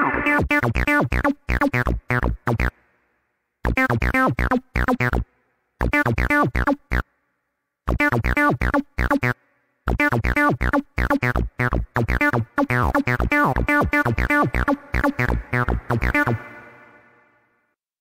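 Arturia ACID V, a TB-303-style software synthesizer, playing a sequenced acid bassline of short, rapid notes, each with a resonant filter sweeping down. The pattern stops briefly three or four times, runs unbroken for several seconds, then stops about three-quarters of the way in and fades out.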